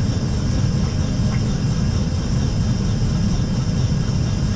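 Steady cockpit noise of an Airbus A320 on short final: an even, deep rumble of airflow and engines with a fainter hiss above it.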